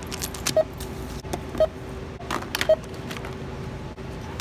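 NCR self-checkout barcode scanner beeping three times, about a second apart, as items are scanned. Between the beeps, plastic blister packaging crinkles and clicks in the hand.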